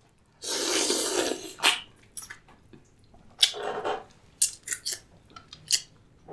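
Seafood shell being cracked and torn apart by hand: wet squelching and tearing, with two longer spells of tearing and several sharp cracks.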